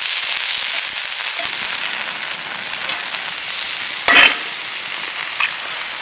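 Vegetables frying in a cast-iron skillet over campfire coals, a steady high sizzle. About four seconds in there is a short louder burst as an egg goes into the hot pan.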